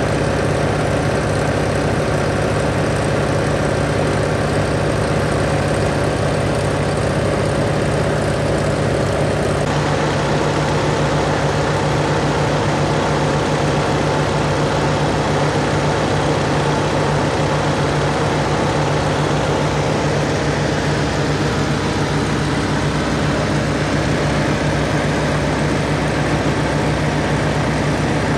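1946 Aeronca Champ's engine and propeller droning steadily in cruising flight, heard from inside the cabin with air rushing past. The tone shifts slightly about ten seconds in.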